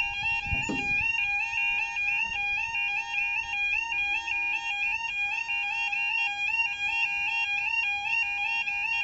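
Level crossing yodel alarm sounding: a steady, repeating two-tone warble that warns of an approaching train while the barriers lower and stay down. A low thump comes about half a second in.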